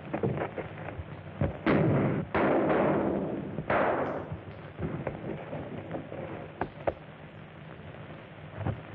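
Several heavy crashes and bangs on a hissy early sound-film track: three loud impacts in the first half, each trailing off slowly, among smaller knocks.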